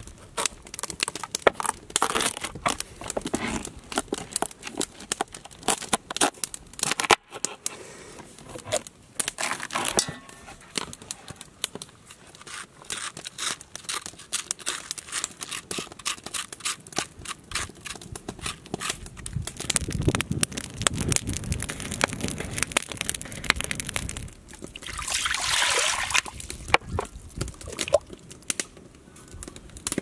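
A knife cuts into a spaghetti squash and scrapes out its seeds and pulp, with many small crackles and crunches throughout. About 25 seconds in there is a brief rushing hiss as water is poured into a cast-iron Dutch oven.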